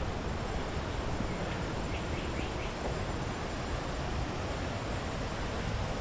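Steady outdoor rushing noise with a fluctuating low rumble, and a few faint ticks about two seconds in.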